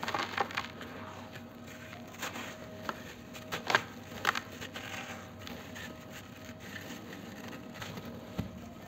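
Dry, grainy mug-moulded lumps crumbled between bare hands: irregular soft crunches and crackles as they break, with dust sifting down and one sharper crack about three and a half seconds in. A faint steady hum sits underneath.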